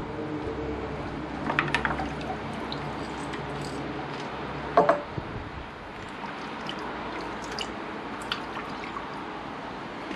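Water dripping and sloshing as metal carburettor parts are lifted out of an ultrasonic cleaner's stainless steel tank of dirty cleaning water, with a few sharp clinks of parts knocking together, the loudest about five seconds in.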